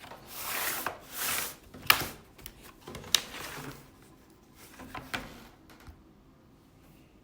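Plastic bottom cover of an Asus FX504 gaming laptop being pressed onto the chassis: short spells of plastic rubbing and scraping, with several sharp clicks as the cover's clips snap into place, stopping about six seconds in.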